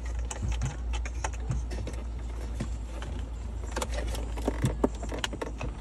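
Hands working a thin wire down behind a Toyota 4Runner's plastic center-console trim: scattered light clicks, taps and rustles of plastic and wire, over a low steady hum.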